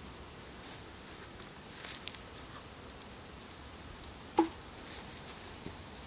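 Rustling and crinkling of a black winter hive wrap being folded and handled by hand, in short scattered bursts, with a single sharp knock about four and a half seconds in.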